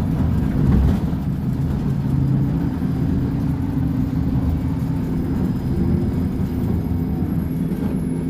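Volkswagen 17-280 OT bus's diesel engine running steadily, a low, even drone with little change in pitch.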